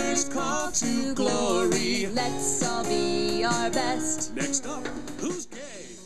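A song with singing and guitar played back through a Philips SBA3000 portable speaker, fading out near the end.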